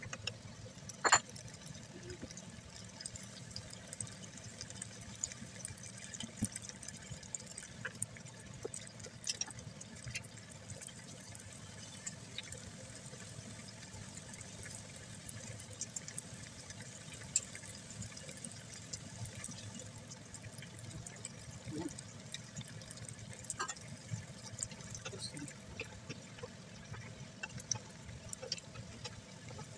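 Stir-fry of minced fish, mushrooms and bell peppers bubbling and sizzling in sauce in a wok, a steady hiss. Scattered clicks of the spatula against the pan while it is stirred, the loudest a sharp clack about a second in.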